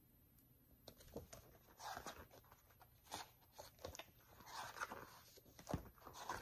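Faint rustling and soft taps of paper book pages being leafed through.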